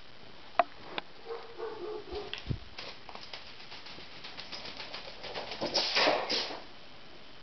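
Cats at play on a laminate floor: a few sharp taps and a low thump as they pounce, and the rustling swish of a feather wand toy being swung, loudest about six seconds in.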